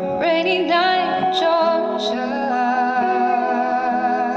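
Live band playing a slow soul ballad, electric guitars, bass and drums under a wordless, hummed vocal line that wavers with vibrato in the first couple of seconds, over sustained chords.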